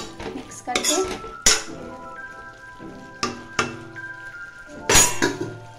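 A steel ladle scrapes and clinks against a metal kadai while stirring frying pumpkin strips, with several sharp knocks, the loudest about a second and a half in and near the end. Background music plays throughout.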